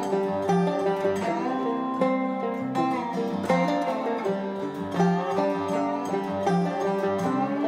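Background music: an instrumental tune of plucked strings, with quick notes over a regular pulse.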